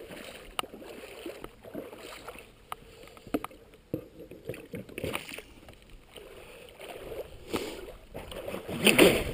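Water lapping and splashing against a radio-controlled boat's hull, heard from a camera on board, with irregular small splashes and louder splashing near the end.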